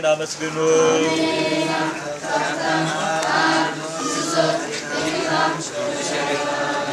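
Ethiopian Jewish (Beta Israel) congregation chanting a prayer together, many voices in unison.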